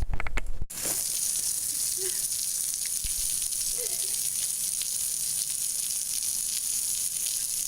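Steady hissing rush of water, starting abruptly under a second in and running on unchanged: water poured or gushing to stage a pregnant character's water breaking.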